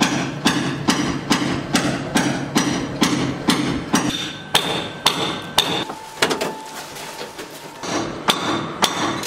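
Hammer blows struck at an even pace, about two to three a second, while material is broken out during asbestos removal. The blows stop for about two seconds past the middle, then a few more follow near the end.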